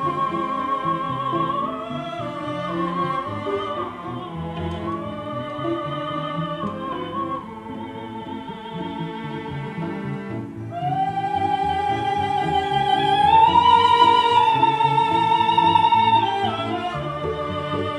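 Slow classical background music: a melody of long, wavering notes over strings, growing louder about two-thirds of the way through and easing off near the end.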